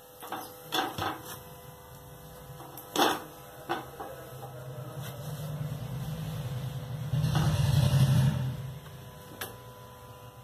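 Light clicks and knocks as slices of toast are turned by hand on a nonstick tawa, the loudest about three seconds in. A low rumbling noise then swells and fades again near the end.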